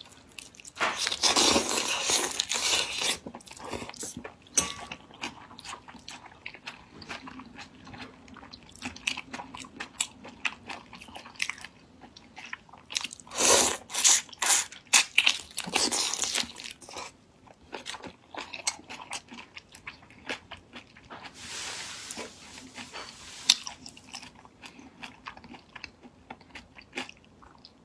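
A person biting and chewing whole raw shrimp in a chili marinade, with many sharp clicks and wet crunches. Louder, longer noisy stretches come near the start and again about halfway through, while a shrimp is held in the mouth.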